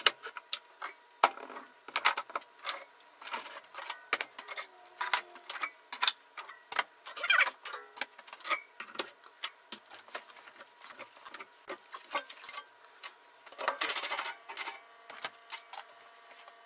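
Grinding and cut-off discs clinking together and angle grinders knocking against a steel wall rack as they are taken off it one by one: a run of irregular clicks and clatters, busiest about halfway through and near the end.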